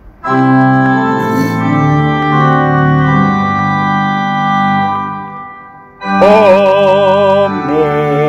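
Organ playing long sustained chords for the closing Amen. The first chord fades away about five seconds in, and a new chord with a wavering vibrato starts a second later.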